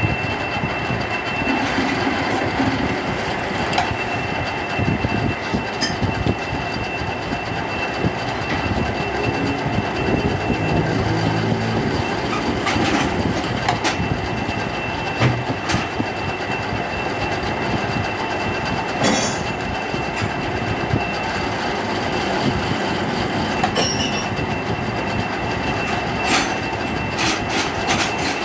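Metal-turning lathe running steadily, with a continuous whine and scattered clicks and clatter.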